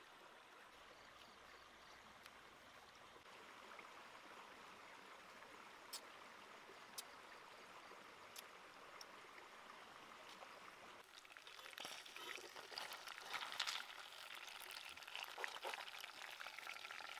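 Faint steady rush of running water with a few small clicks, then about two-thirds of the way through, a louder crackling sizzle of a fish frying in oil in a pan.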